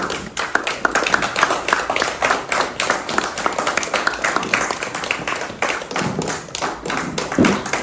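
A small group of people clapping their hands in a quick, steady stream of claps, with a few voices mixed in near the end.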